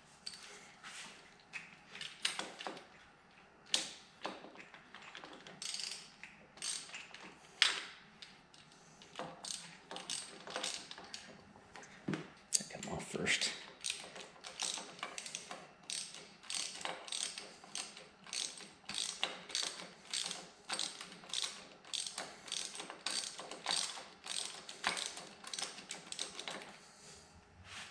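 Hand ratchet wrench clicking through repeated short back-strokes, with a few sharper tool knocks in the first half. The clicks come faster and more evenly, about two or three a second, in the second half.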